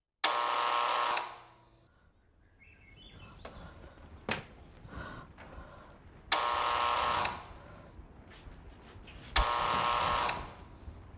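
A bell ringing in three bursts of about a second each: one right at the start, one about six seconds in and one near the end.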